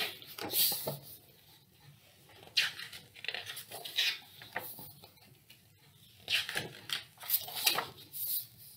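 Pages of a hardcover picture book being turned and handled: a series of short papery rustles and rubs as the pages flip and slide under the hands.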